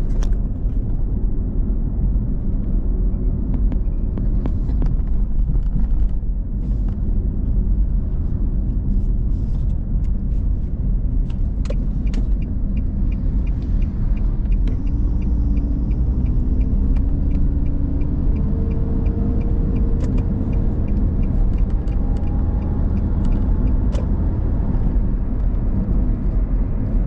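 Car driving on the road, heard from inside the cabin: a steady low rumble of engine and tyres. A regular light ticking runs for about ten seconds in the middle, and faint rising engine tones come in the second half.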